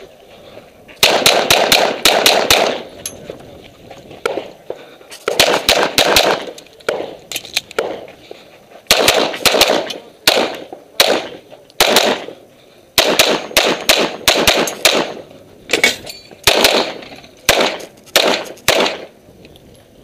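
Semi-automatic pistol fired in rapid strings of several shots, with short pauses of a second or two between strings as the shooter moves between targets.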